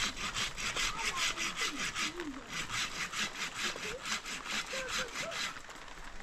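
Fast rhythmic rasping strokes, about six a second, pausing briefly about two seconds in and thinning out near the end.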